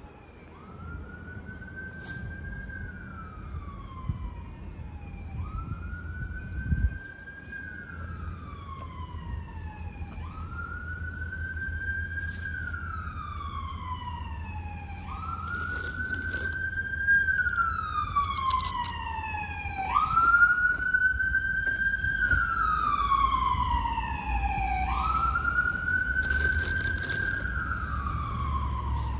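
Emergency vehicle siren on a slow wail: each cycle rises quickly in pitch and then falls slowly, repeating about every five seconds and growing louder, over a steady low rumble.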